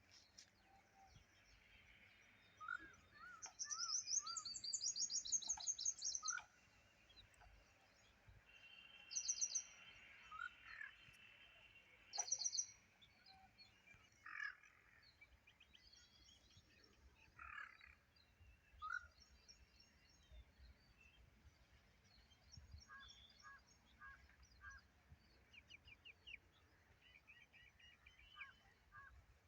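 Wild birds calling, several different calls and chirps over faint outdoor background noise. The loudest is a rapid high trill lasting about two and a half seconds, starting about three and a half seconds in.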